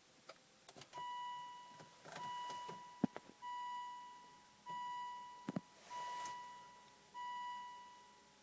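Electronic warning chime dinging six times, about once every 1.2 seconds, each ding fading away, with a few sharp clicks in between.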